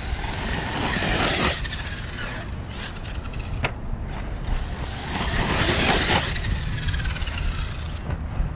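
Arrma 6S brushless RC truck driving hard over a gravel dirt lot: motor whine and tyre noise swell twice, rising and falling with the throttle. There is one sharp click about halfway, over a steady low wind rumble on the microphone.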